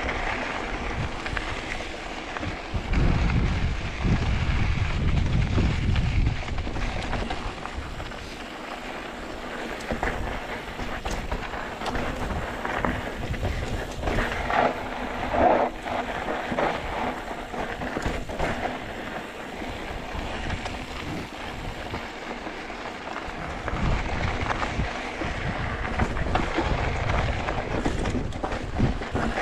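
Wind buffeting the microphone as a steady rushing noise, with gusts of low rumble and scattered clicks and rattles.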